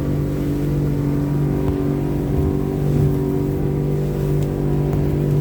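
Outboard motor of a small passenger boat running steadily, a constant-pitched engine drone with a rumble underneath.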